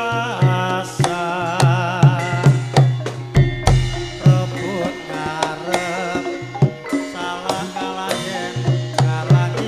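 Javanese gamelan music for dancing: kendang hand-drum strokes in a steady rhythm with a few deep drum hits, over ringing pitched gamelan tones. A wavering melody line with vibrato rises above them.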